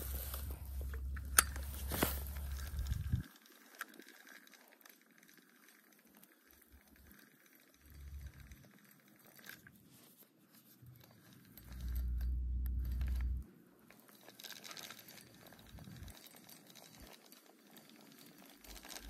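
Low rumble on the microphone, for about the first three seconds and again briefly about twelve seconds in, with faint clicks and rustles from handling a spincast fishing rod and reel in between.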